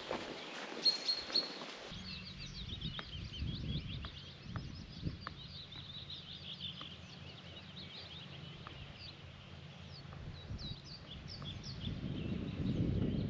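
Several wild birds singing and chirping, their quick calls overlapping, over a low steady rumble that swells near the end. The background changes abruptly about two seconds in.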